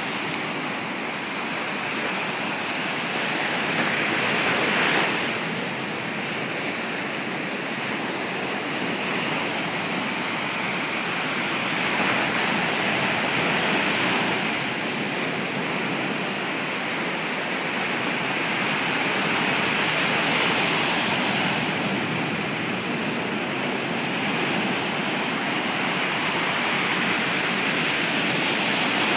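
Ocean surf breaking and washing up a sandy beach: a steady rush that swells with each incoming wave, about every 7 to 8 seconds.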